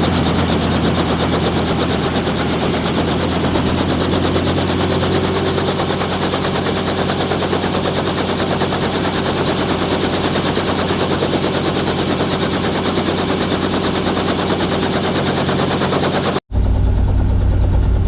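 Tour helicopter in flight: rotor and engine running with a fast, steady chopping beat over a low hum. About sixteen seconds in the sound cuts off abruptly and resumes as a deeper, steadier rumble.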